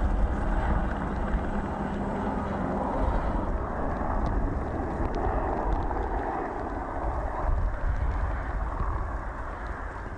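Outdoor field sound at an erupting lava flow: a steady low rumble of wind buffeting the microphone, with a few faint crackles of the lava crust midway through.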